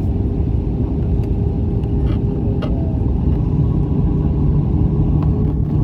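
Steady low rumble of engines and airflow inside an Airbus A320 cabin on final approach, with a faint constant hum beneath it.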